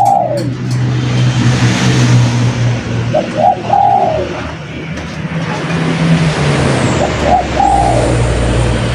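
Spotted dove cooing its short rolling phrase about every four seconds, over a loud steady rumble of traffic or engine noise.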